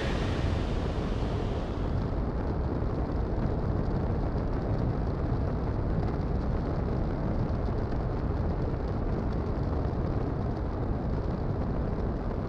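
Long March 1 rocket's engines at liftoff and climb: a steady, deep rumble whose higher hiss dies away over the first two seconds while the low rumble goes on.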